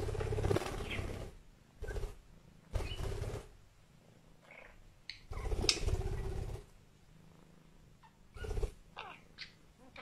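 Cat purring in uneven bursts, each up to about a second and a half long, with short high chirps from a budgerigar between them.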